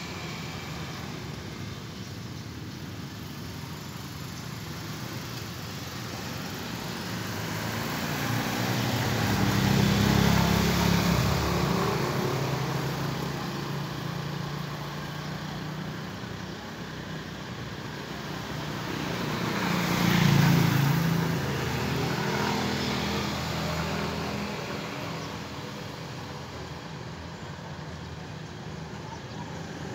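Motor vehicles passing by one after another. Each engine sound swells and fades: the first peaks about a third of the way in, the second, slightly louder, about two thirds in.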